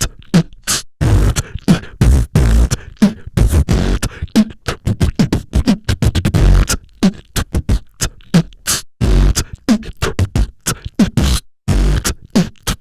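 Human beatboxing: a fast, continuous run of mouth-made kick drums, snares and hi-hats, with short pitched vocal sweeps between the hits and a few brief pauses.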